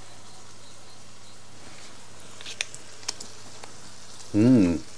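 A few light clicks and taps as meat slices and garnish are set onto a ceramic plate by hand, over a faint steady hum, then a short voiced 'mm' with a rising-then-falling pitch near the end.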